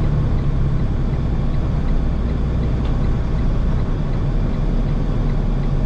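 Semi-truck's diesel engine pulling a loaded rig up a hill on a snowy road, heard from inside the cab: a steady low drone whose lowest tone changes about four seconds in.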